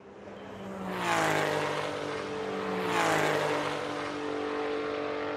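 Race car engines at speed: two cars pass close by, about a second and about three seconds in, the engine pitch dropping as each goes past, then engine sound holds steady.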